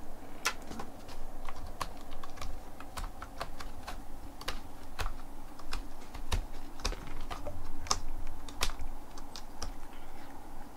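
Cat scratching its claws on a cardboard scratcher, an irregular run of scratchy clicks, a few a second.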